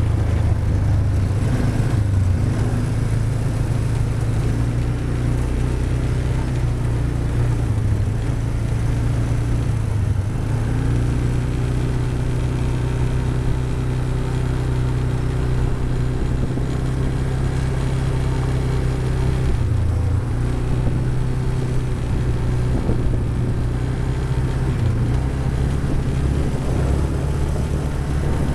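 ATV (quad bike) engine running steadily under way, heard from on board, a low even drone whose pitch shifts a little now and then with the throttle.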